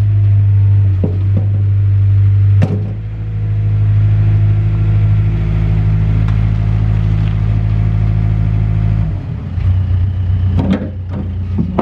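Mustang 940E skid steer's Yanmar diesel engine running steadily. There is a sharp knock about three seconds in, the engine note drops around nine seconds, and a few clunks follow near the end.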